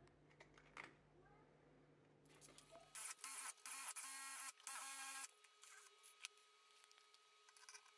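A power drill's motor whirring in several short bursts from about three seconds in, with a faint steady whine between them. It is spinning an old hand drill's rusty spindle while 320-grit aluminium oxide cloth is pressed against it to polish off the rust.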